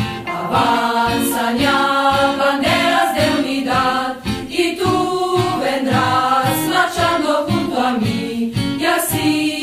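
A choir singing a rousing marching protest song over a steady beat.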